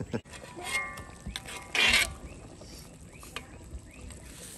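Night-time outdoor ambience: short rising chirps from small animals repeat a couple of times a second, with a brief loud noisy burst about two seconds in.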